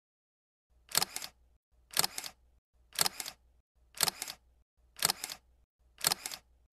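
Countdown-intro sound effect: a sharp double click once a second, six times.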